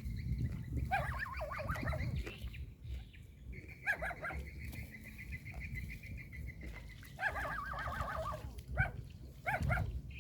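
Animal calls: several short bouts of high, wavering cries over a low, steady rumble.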